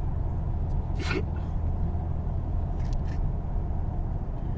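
Steady low road and engine rumble inside a moving car's cabin, with a short sharp noise about a second in.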